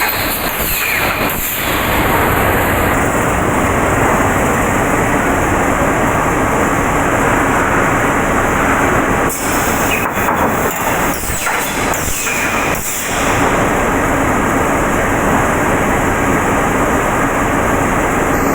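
Automatic plywood sanding machine line running: loud, steady machine noise, with a few brief dips near the middle.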